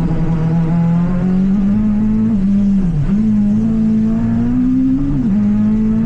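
Citroen C2 Super 1600 rally car's 1.6-litre four-cylinder engine revving hard. The revs climb, dip sharply twice around the middle, climb again, then drop back about five seconds in and hold steady.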